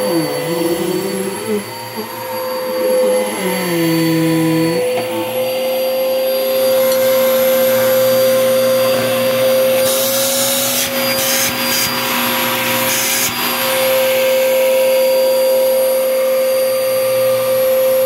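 2013 Bissell Powerforce Helix upright vacuum cleaner running, its motor giving a steady high whine. The lower sound shifts during the first few seconds, and a few seconds of added hiss come about ten seconds in.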